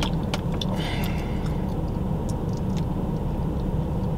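Steady low hum of a car heard from inside its cabin, with a few faint clicks near the start.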